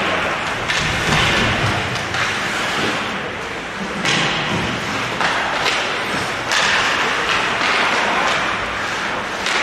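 Ice hockey play on a rink: skates scraping the ice under several sudden thuds and clacks of sticks and puck against the boards.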